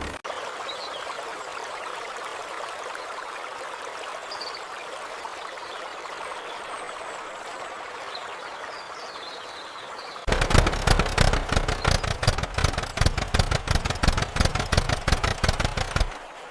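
A soft steady hiss with a few faint chirps. About ten seconds in it gives way suddenly to a loud cartoon tractor engine chugging in rapid, even pulses.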